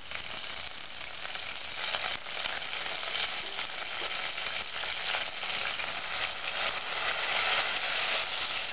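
Sliced onions and fresh mint leaves frying in hot oil in a steel pot: a steady crackling sizzle that grows a little louder toward the end.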